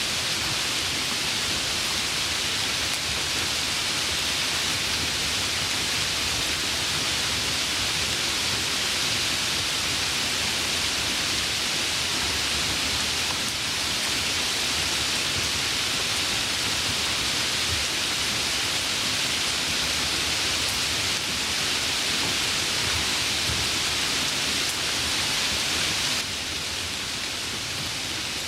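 Steady rain falling in an even hiss, with no separate drops standing out. It gets a little quieter near the end.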